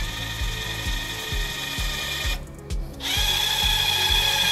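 Bosch GDX 18V-200 cordless impact driver driving a wood screw into soft jati Belanda (crate pine). It runs with a high whine for about two and a half seconds, stops briefly, then runs again for the last second and a half.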